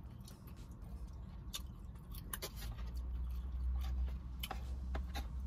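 Close-up chewing of a mouthful of food, with irregular wet mouth clicks and smacks, over a steady low hum.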